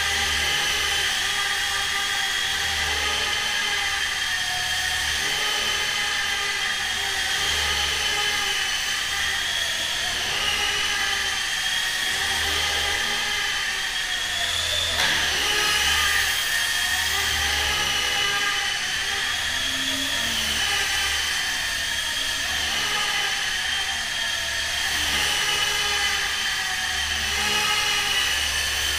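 High-pitched whine of small electric motors running continuously, their pitch wavering up and down every second or two, with a brief rise and fall about halfway through.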